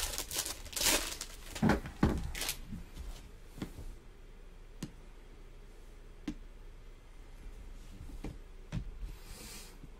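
Foil trading-card pack wrapper crinkling and tearing open in several quick bursts over the first two and a half seconds, then a few soft isolated clicks of cards being handled and a short swish near the end.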